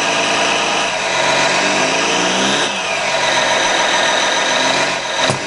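1:16 scale radio-controlled hydraulic Doosan excavator working, with its hydraulic pump and electronic diesel engine sound running steadily and rising and falling in pitch several times as the quick coupler releases the claw attachment.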